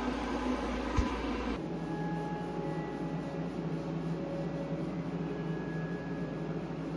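Dried drywall joint compound being sanded by hand with a small sanding pad: a soft, steady scratching rub over a low, steady hum.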